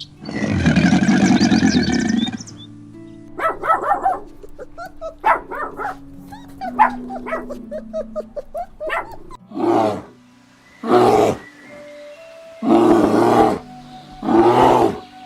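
Recorded tiger roar for the first couple of seconds, then a run of short quick animal calls, then four longer loud calls, all over a simple background music track with held notes.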